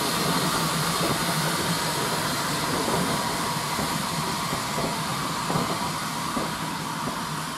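Steam train running just out of sight: a steady rumbling rush with hiss that slowly fades away.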